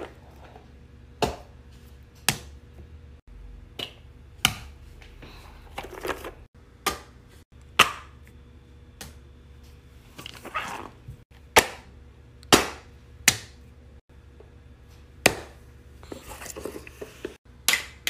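Fidget toys being set down one after another on a paper-covered tabletop: a string of sharp taps and knocks about once a second, at uneven intervals, with brief rustling and sliding sounds between them.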